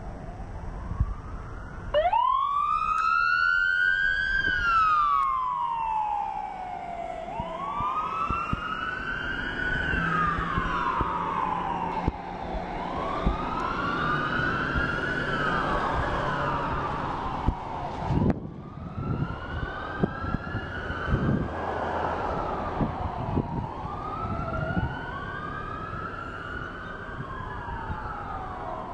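Emergency vehicle siren starting up with a sharp rise, then wailing in slow sweeps up and down, loudest at first and growing fainter as the vehicle moves away, with overlapping wails later on. A single sharp thump about two-thirds of the way through.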